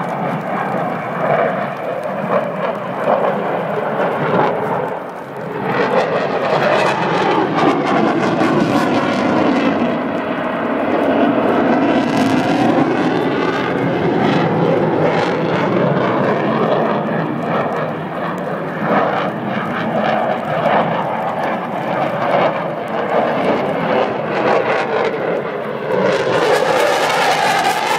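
Military jet aircraft flying a display pass, its engine noise loud throughout, with sweeping pitch lines that rise and fall as it passes.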